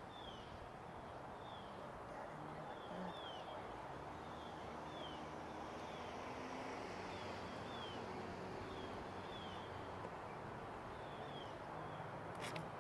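A small bird calling in short falling chirps, about one or two a second, over steady outdoor background noise, with one sharp click near the end.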